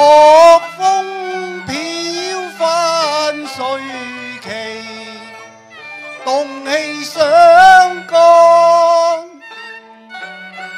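Cantonese opera (yueju) singing: long, wavering sung phrases with vibrato over a Chinese instrumental ensemble with bowed strings.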